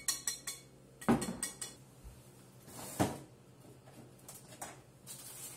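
Kitchen clatter: a few quick clinks of a utensil against a mixing bowl, then two solid knocks about two seconds apart, the first the loudest, with lighter clicks of things being handled.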